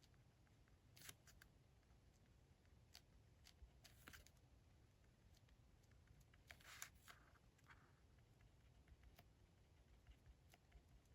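Near silence: a quiet desk, with faint scattered ticks and three short rustles of paper being handled, about one, four and seven seconds in.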